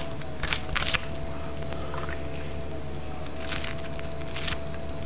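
A small spoon spreading soft goat cheese onto toasted baguette slices: a few short scrapes on the crisp bread, around half a second in and again near three and a half and four and a half seconds. Under it runs a steady low hum with a faint held tone.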